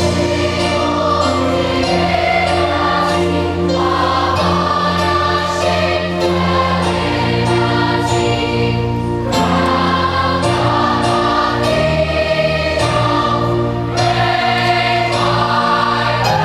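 Musical-theatre ensemble number: a large chorus of young middle-school voices singing together in long held notes over a steady instrumental accompaniment with a sustained bass.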